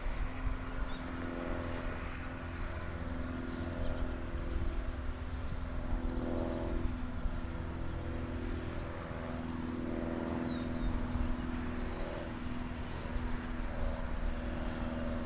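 A distant engine running steadily, its hum swelling a little a few times, over low wind rumble on the microphone. A couple of faint bird chirps.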